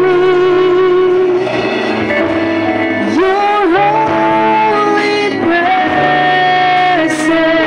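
Live worship band playing a song with long held notes: a woman singing into a microphone over keyboard, bass and electric guitar.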